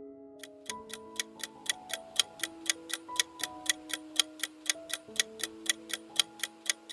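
Clock-ticking countdown sound effect, about four even ticks a second, starting about half a second in, over soft held background music notes. It marks the timed pause for answering a quiz question.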